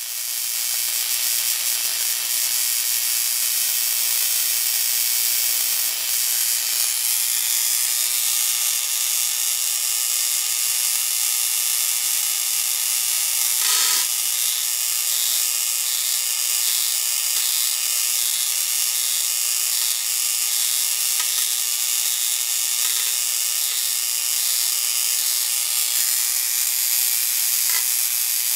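High-voltage electrical discharge sizzling in a glowing discharge tube setup: a steady, loud, mostly high-pitched hiss with a faint low hum underneath. One brief click about halfway through.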